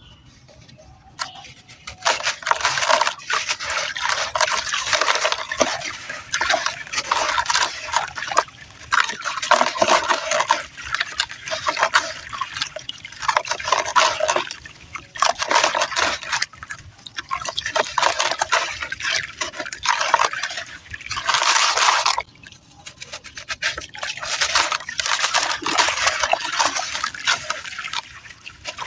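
Dry red dirt crunching and crackling in dense stretches of quick, gritty crackles with short pauses between them, starting about two seconds in.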